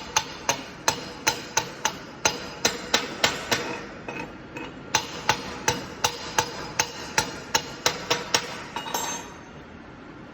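Hammer striking metal in a steady series of sharp, ringing blows, about three a second, with a short pause near the middle. The blows stop shortly before the end, leaving a steady background hum.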